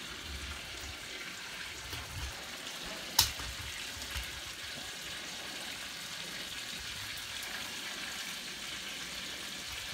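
Steak and green onions sizzling in a frying pan on the stove, a steady low hiss. One sharp click about three seconds in.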